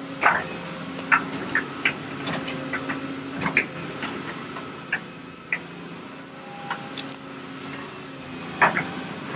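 Heavy machine's engine running steadily, with irregular sharp clanks and knocks throughout.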